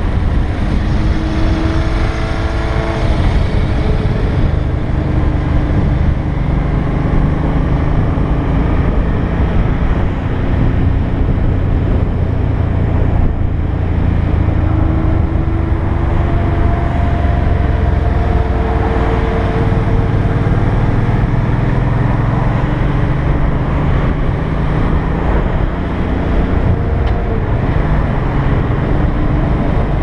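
Motorcycle engine running at road speed, its pitch rising several times as it pulls up through the gears, under heavy wind rush on the microphone.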